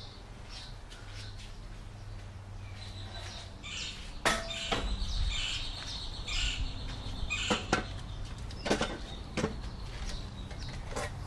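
A few sharp knocks and rattles from a white tubular step ladder being picked up and handled.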